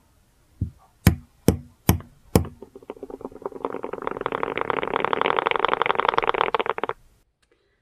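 Four sharp taps about half a second apart, after a fainter one, from a female Cyriopagopus sp. hati hati (purple earth tiger) tarantula, then the male drumming in reply: a fast rattle of clicks that builds up over a second or so, runs steadily, and cuts off suddenly near the end. The exchange is courtship signalling.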